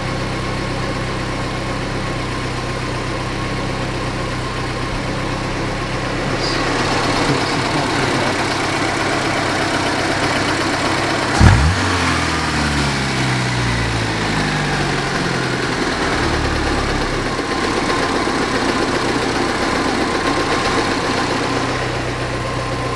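Saab 90 engine idling steadily on its freshly adjusted Stromberg carburettor. The sound grows a little louder about six seconds in. Just before halfway there is a sharp thump, followed by a whirr that winds down in pitch over several seconds.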